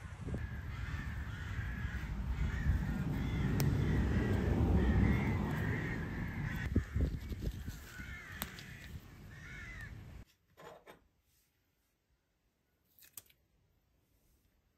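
Birds calling again and again over a loud rush of wind on the microphone, with a few light clicks. About ten seconds in the sound cuts off to near silence, with a couple of faint clicks.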